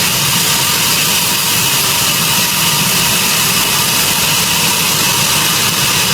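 Sawmill machinery running steadily: a constant loud engine-like drone with a strong hiss, unchanging throughout.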